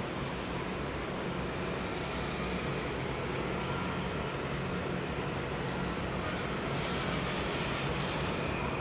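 Steady low mechanical drone with a constant hum from ship and shipyard machinery, with a few faint high chirps in the first few seconds.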